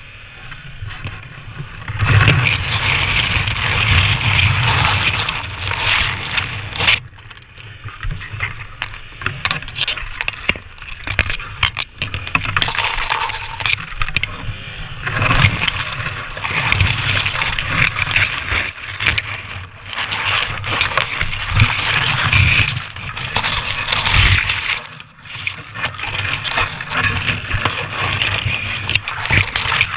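Stiff pampas grass blades scraping and rustling against a helmet-mounted camera in irregular loud surges, with a low rumble underneath, as a dirt bike is pushed through the dense clumps.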